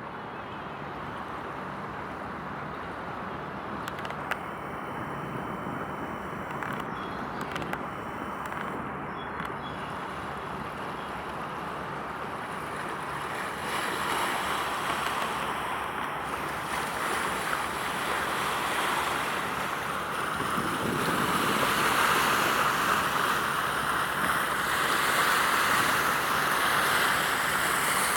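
Steady rushing wind and water noise by the sea. It grows louder about halfway through and again in the last third.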